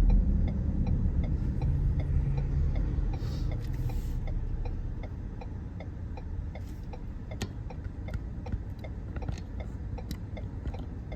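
Car turn signal clicking steadily, about three ticks a second, over low road and engine rumble that fades away in the first five seconds as the car slows.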